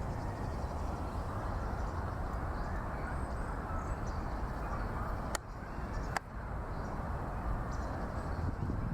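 Urban park ambience: a steady low rumble of distant traffic with faint, high, short bird calls. Two sharp clicks come about five and six seconds in.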